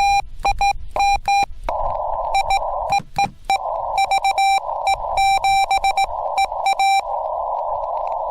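Morse code from a Yaesu FT-891 transceiver's speaker: a single high beep keyed on and off in dots and dashes. From about two seconds in, the receiver's narrow-filtered hiss fills the gaps between the characters.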